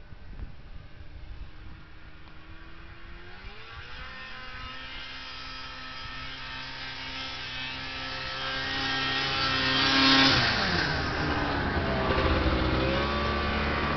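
Snowmobile engine approaching: it revs up about four seconds in and grows steadily louder. It is loudest about ten seconds in, drops in pitch as it passes, then keeps running.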